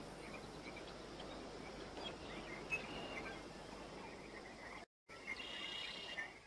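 Forest ambience: a steady hiss with scattered short bird chirps and insect calls. The sound cuts out completely for a moment about five seconds in, then returns with a brief cluster of high chirps.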